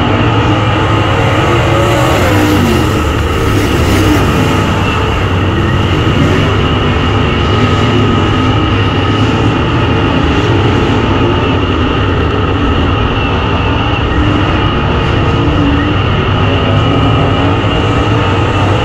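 Dirt track race car's V8 engine running steadily at speed, heard through an in-car camera in the cockpit, with engine and wind noise filling the sound.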